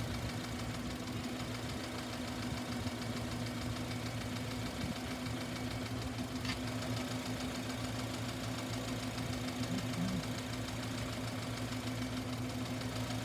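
Four-cylinder car engine idling steadily with a constant low hum.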